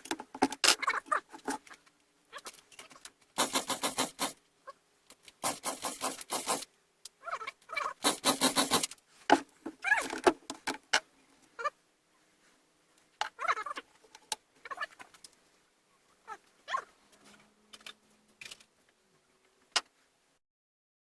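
Partner 510 two-stroke chainsaw being pull-started three times, each pull a second-long burst of rapid chattering as the engine turns over without catching: the carburettor is not drawing fuel. Lighter clatter of handling comes between the pulls.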